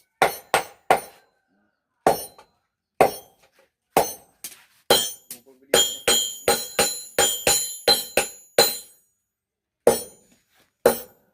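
Hand hammer striking a machete blade on an anvil during forging. A few separate blows a second or so apart, then a quick run of about three strikes a second that ring with a bright metallic tone, then two more single blows.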